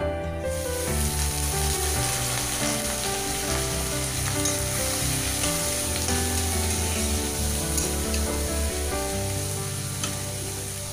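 Shredded cabbage sizzling as it fries in hot oil in a kadai, stirred with a spatula; the sizzle starts about half a second in. Background music plays underneath.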